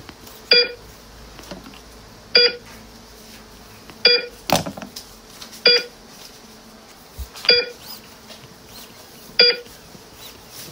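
Electronic patient-monitor-style beep repeating steadily, six short beeps about every 1.8 seconds, the pretend heart monitor of a play surgery. A brief handling knock or rustle falls about halfway through.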